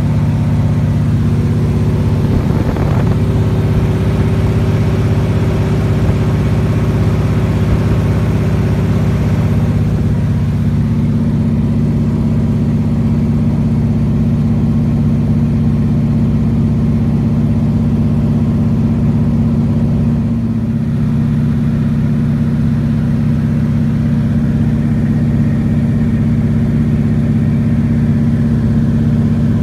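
A light aircraft's engine and propeller droning steadily in cruise, heard from inside the cabin. The tone shifts slightly about ten seconds in.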